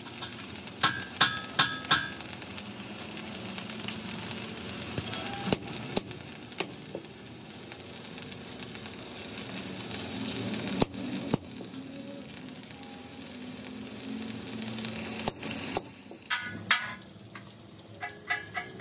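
Electric arc welding on a steel tractor blade frame: the arc crackles and sizzles steadily as the bead is laid. About a second in there is a quick run of sharp metallic taps that ring, and a few more clinks come near the end.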